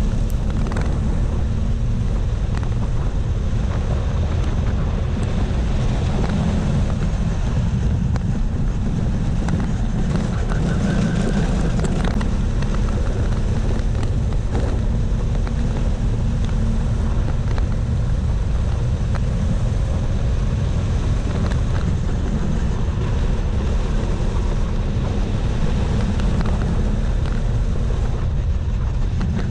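Go-kart engine running steadily at racing speed, heard from a camera mounted on the kart, a continuous low drone with no pauses.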